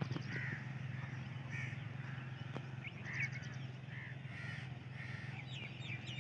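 Crows cawing repeatedly, with another bird's quick chirps near the end, over a steady low hum.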